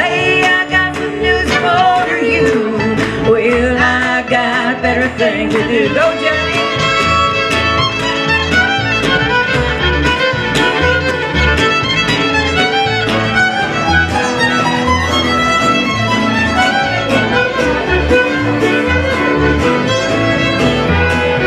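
Live country band playing an instrumental break between sung lines: acoustic guitar and upright bass keep a steady beat, with a melodic lead line over them.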